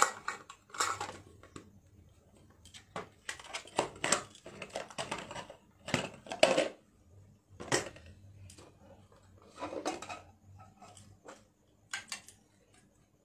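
Jewellery being handled and sorted: irregular clinks of metal bangles and rustling of packaging, with gaps between.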